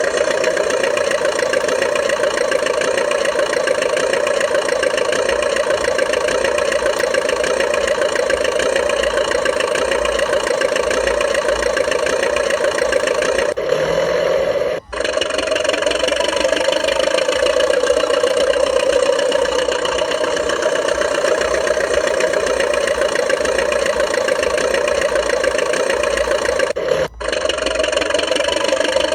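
Radio-controlled DT-54 crawler bulldozer model running steadily under load, with a constant mechanical drone. The sound cuts out briefly twice, about halfway through and near the end.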